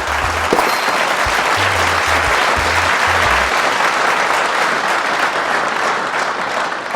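Recorded applause sound effect clapping steadily throughout, with a few low bass notes underneath in the first half.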